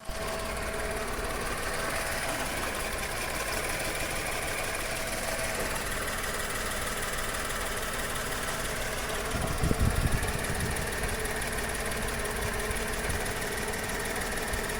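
Three-cylinder 1.2 12-valve petrol engine (VW/Skoda/Seat) idling, misfiring on cylinder 2 (fault code P0302). The owner suspects leaking exhaust valves, since cylinders 1 and 2 show low compression. A louder low rumble comes about ten seconds in, for about a second.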